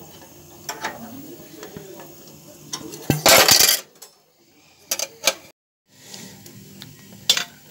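Popcorn kernels popping inside a lidded pot: scattered sharp pops, a dense cluster about three seconds in, and a few more pops near the end.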